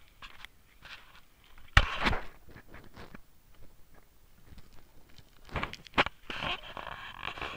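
Footsteps on a stony, grassy mountain path, with loud knocks about two seconds in and again near six seconds.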